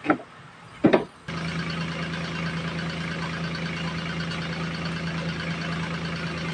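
Blender motor switched on, running with a steady hum that starts abruptly about a second in, after a couple of short knocks.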